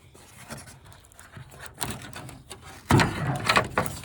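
Parts of a flat-screen TV being pulled out by hand: scraping and rubbing, with a burst of louder knocks and rattles about three seconds in.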